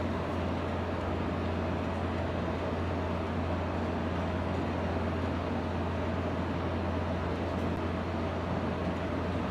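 Steady fan noise: an even hiss with a strong low hum underneath, unchanging throughout.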